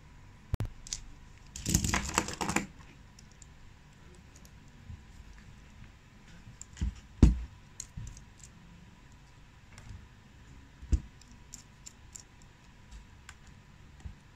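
Small metal screen-press clamps being handled and fitted onto the edge of a freshly glued tablet screen. A clattering rattle comes about two seconds in, then scattered single knocks, the loudest about seven seconds in, and light clicks.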